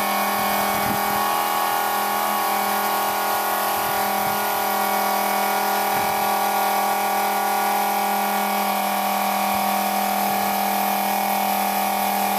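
Hyundai Robex excavator's on-board electric refuelling pump running steadily with a constant hum and whine, drawing diesel up the hose from a can into the tank.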